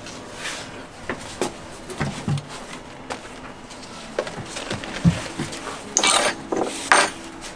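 Handling noises from a leather hiking boot and a strap in a shoemaker's workshop: scattered knocks and taps as the boot is handled. Near the end come two louder rustling scrapes, about a second apart, as a strap is drawn around the boot to hold it on the knee.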